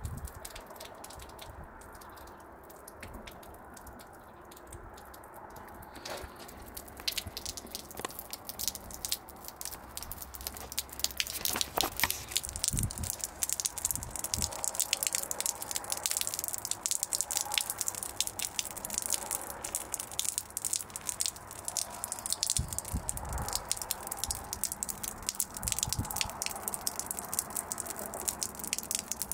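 Wet snow crunching and crackling, getting busier about six seconds in, with a few dull thumps.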